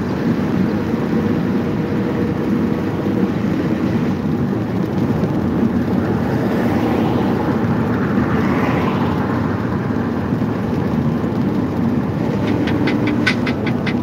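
Steady road and engine noise inside a vehicle moving at highway speed, with a whine that rises in pitch about halfway through. A quick run of sharp ticks starts near the end.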